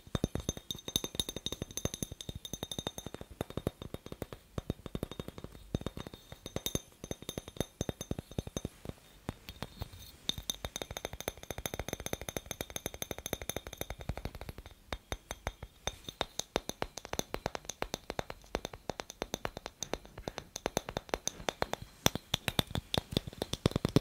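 Fingernails tapping fast on a clear glass incandescent light bulb: a dense run of small sharp clicks, with the glass ringing in high tones during some stretches.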